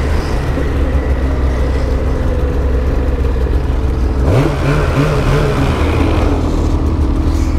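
Two-stroke mountain snowmobile engine running at idle, revving up sharply about four seconds in and then settling back.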